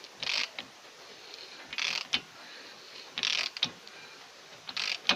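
Bare wheel hub of a VAZ 2109 turned by hand in short pushes, giving four brief dry whirring scrapes about a second and a half apart, with small clicks between them, while its runout is checked with a dial indicator.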